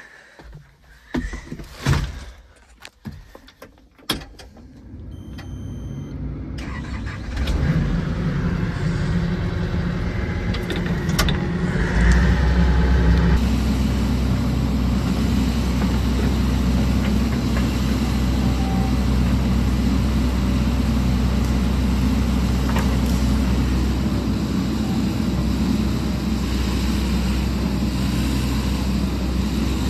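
Sany SY80 excavator being started: a few knocks as the operator gets into the cab, a brief electronic beep, then the diesel engine starts about six seconds in, rises in speed around twelve seconds, and runs steadily at working revs.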